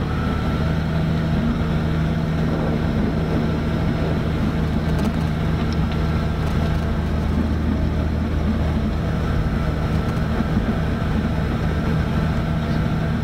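Robinson R44 helicopter's six-cylinder Lycoming piston engine running and main rotor turning, a steady drone heard inside the cockpit while the clutch finishes engaging the rotor drive.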